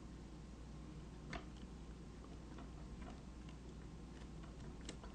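Faint, scattered metallic clicks and ticks of a wire pick working the pins inside a handcuff lock during single-pin picking, the clearest about a second in and several more in the second half.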